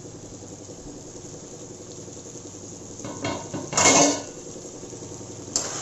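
Metal lid being lifted off a kadai and set down: a few light clinks about three seconds in, then a louder clatter about a second later, over a low steady background.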